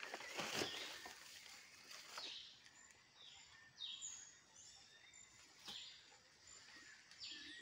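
Faint forest ambience: several short bird calls that slide down in pitch, over a soft steady hiss, with a few brief crackles.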